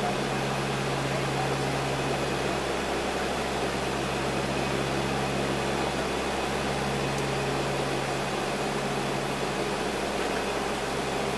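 Lockheed L-188 Electra's four turboprop engines and propellers in cruise, heard in the cockpit as a steady drone with a few constant low hum tones under rushing air.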